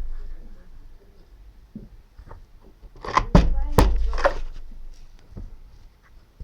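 A few loud knocks or thuds in quick succession, about three to four seconds in, mixed with short bursts of voice.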